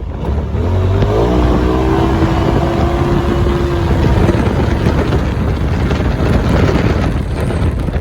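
A motor whine that rises in pitch about a second in, holds steady for about three seconds, then fades, over steady rumbling noise.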